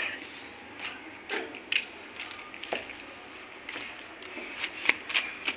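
Footsteps and light scuffs on a concrete roof: a few scattered short clicks over a faint steady hiss.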